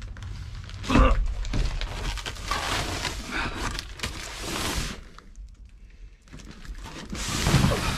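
A large box wrapped in plastic stretch wrap being handled and shifted, with a thump about a second in, rustling after it, and another burst of rustling near the end.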